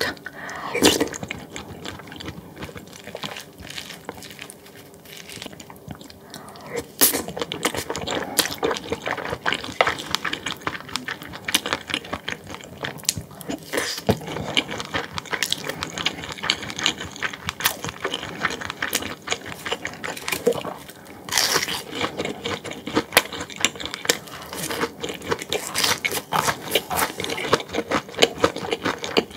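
Close-miked eating sounds: chewing and crunching mouthfuls, with many sharp clicks and scrapes of spoon and chopsticks against dishes. Busier from about seven seconds in and again around twenty seconds in.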